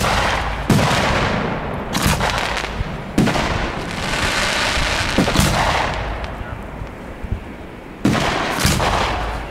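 Aerial firework shells bursting in a run of sharp bangs, about half a dozen in under ten seconds, with a dense hiss in the gaps between them.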